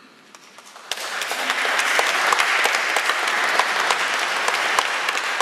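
Audience applauding: dense clapping breaks out about a second in, right after the choir's final chord has died away.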